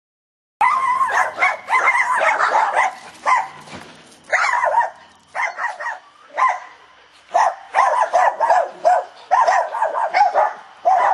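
A dog barking rapidly and repeatedly in quick volleys with brief pauses, starting just under a second in and cutting off suddenly at the end.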